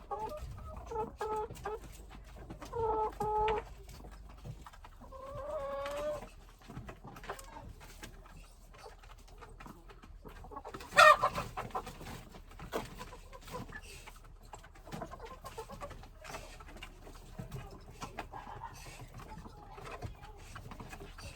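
Chickens clucking: short repeated calls in the first few seconds, then one loud, sharp squawk about eleven seconds in, with fainter clucks after.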